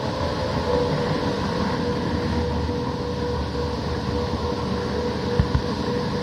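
Model train running along the track, heard from a camera riding on it: a steady mechanical running hum with a constant tone from the motor, and two brief low bumps about five and a half seconds in.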